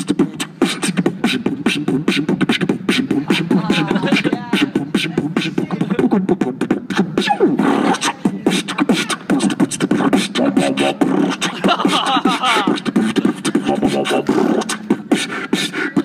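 Beatboxing: a fast, unbroken stream of mouth-made drum sounds, with a hummed low tone running underneath and brief sung, sliding pitches over it.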